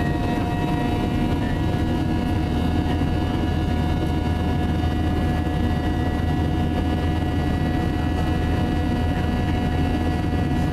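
Boeing 737 turbofan jet engines heard from inside the cabin during the climb after takeoff: a steady low rumble with several steady whining tones above it, unchanging throughout.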